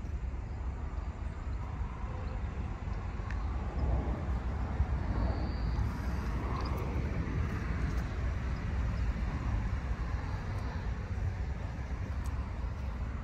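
Steady low outdoor rumble with no distinct events, the kind made by distant road traffic and wind on the microphone.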